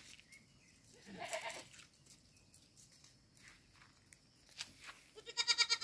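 Goats bleating: a shorter call about a second in, then a loud, quavering bleat near the end.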